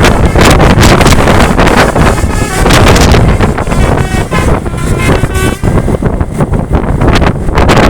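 Heavy wind buffeting the microphone, with a tour bus's Basuri telolet air horn sounding short bursts of its musical multi-tone notes, about two and a half seconds in and again about five seconds in.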